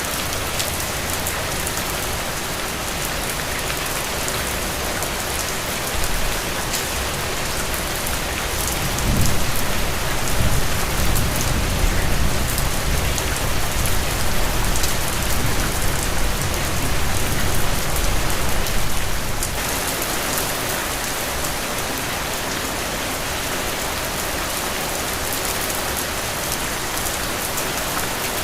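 Heavy rain falling steadily. About a third of the way in a low rumble of thunder rises under the rain and rolls on for about ten seconds before fading.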